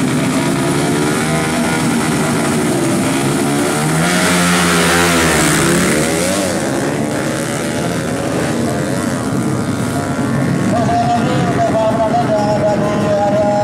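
Small drag-racing underbone motorcycle engines revving hard and accelerating down the strip, loudest in a surge about four to six seconds in, with shifting engine pitch. Near the end a single engine holds a steady high note.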